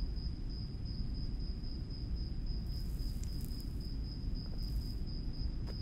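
A cricket trilling steadily at a high pitch over a constant low rumble of night ambience. Two short soft hisses come about three and nearly five seconds in.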